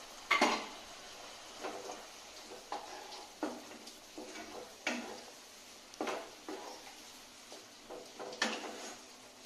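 Wooden spatula knocking and scraping against a kadai while stirring a thick masala: about ten short, uneven knocks with a brief ring from the pan. The loudest knock comes about half a second in.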